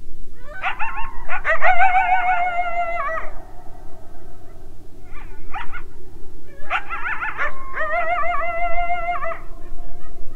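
Several canines howling together in wavering, overlapping voices: two long bouts of howls with a short pair of calls between them.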